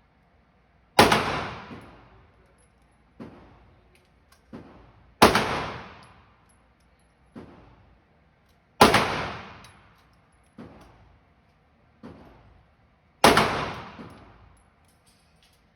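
Handgun shots fired singly, four loud ones a few seconds apart, each with a short echoing tail, and fainter shots in between.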